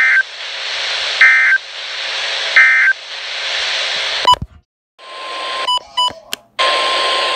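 Weather radio end-of-message signal: three short bursts of warbling SAME data tones, about a second and a half apart, over loud radio static hiss. About four seconds in, a click cuts the audio out briefly. It comes back as a steady mid-pitched tone with a few clicks, still over the hiss.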